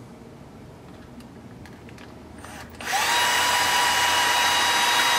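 Electric screwdriver driving a screw into a plastic RC-car roll cage: quiet handling at first, then about three seconds in the motor starts with a quick upward sweep in pitch and runs as a steady whine.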